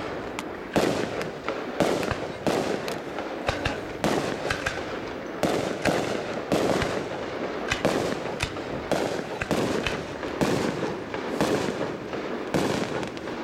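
Fireworks shells bursting in rapid succession, sharp bangs several times a second, each trailing off into a rumbling echo, thinning out near the end.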